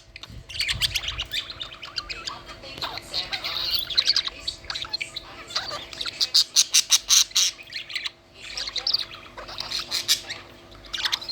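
Pet budgerigars chattering: a dense run of quick chirps and squawks, with a short lull about eight seconds in.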